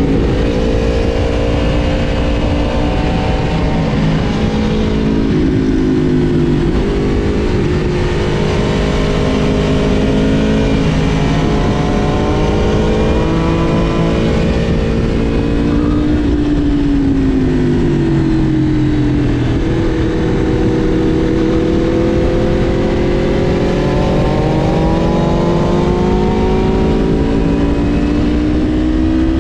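Aprilia RSV4 Factory's V4 engine under way, its pitch climbing and dropping repeatedly as the bike accelerates, shifts and slows, over a steady rush of wind noise.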